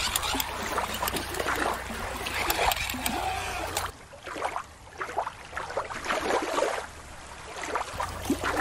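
Shallow water lapping and splashing around plastic toys at a rocky shore. About four seconds in, this gives way to a quieter, duller background. The splashing comes back near the end.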